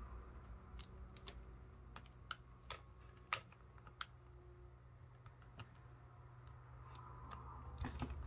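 Multimeter test probes and a small cylindrical battery being handled: about a dozen light, irregular clicks and taps, with a faint low hum underneath.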